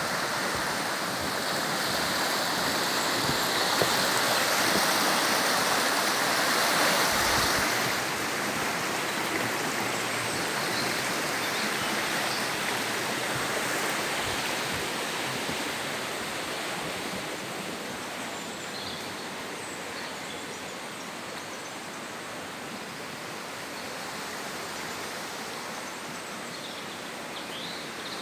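The Una river rushing steadily, a constant wash of water noise. It is loudest in the first several seconds, then grows fainter after about eight seconds and again after about sixteen.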